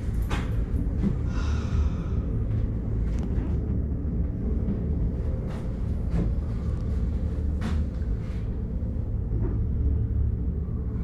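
Steady low rumble inside a PEAK 2 PEAK gondola cabin travelling along its cables, with a few brief faint clicks now and then.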